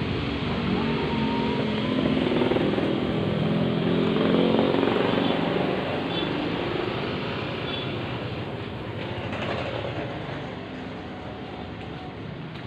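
A motorbike engine running, growing louder over the first few seconds and then fading away, as if passing by.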